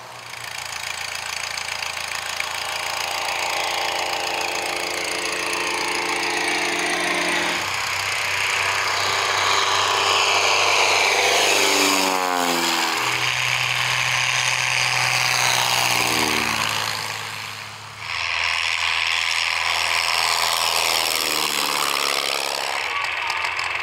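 Single-engine piston light aircraft taking off one after another at full power, each engine and propeller drone dropping in pitch as it passes close by. About three-quarters of the way through, the sound dips sharply and a new plane's engine takes over.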